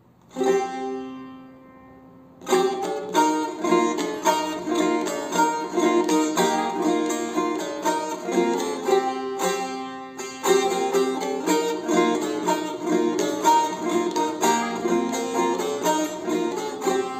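Dede sazı, a long-necked Turkish saz, played solo: one chord struck and left ringing for about two seconds, then a quick plucked melody with many rapid notes, the instrumental introduction to a deyiş.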